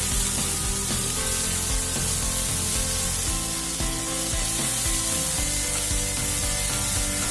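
Chopped onions, green chillies and curry leaves sizzling steadily as they sauté in hot oil in a pan, over background music.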